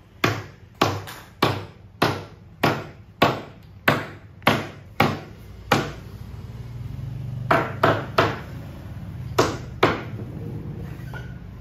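Sharp wooden knocks about every 0.6 s, around ten in a row, as the panels of a wooden subwoofer cabinet are nailed together. A low steady hum runs through the middle, and after it come a few more scattered knocks.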